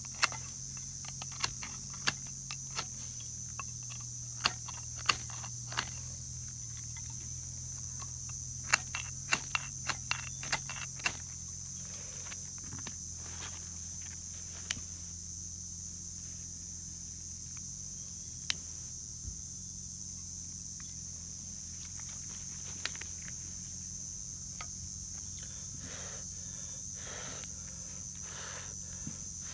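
Steady high-pitched insect chirring, with sharp knocks and clicks of firewood and tools being handled at a campfire site: a quick run of them in the first ten seconds or so, then a few scattered ones.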